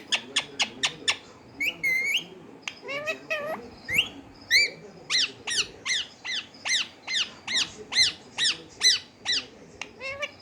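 Pet parrot squawking: many short harsh calls, turning into a rapid, even run of about four calls a second in the second half.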